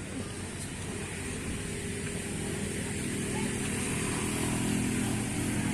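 A motor vehicle engine running at steady revs, growing louder over the first few seconds.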